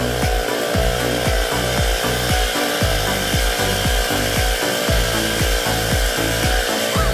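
Background music with a steady beat, about two beats a second, over a stepping bass line.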